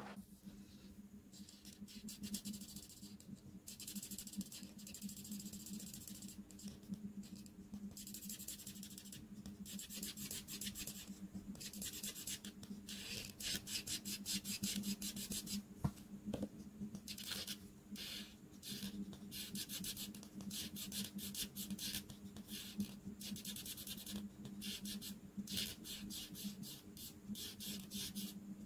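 Art marker tips scratching across paper while colouring in, in runs of quick repeated strokes with short pauses between, over a low steady hum.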